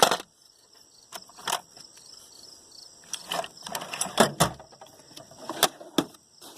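Metal hand tools and sockets clinking and knocking as they are handled and rummaged through in a toolbox: a string of irregular sharp clicks, with a loud knock right at the start and another about four seconds in.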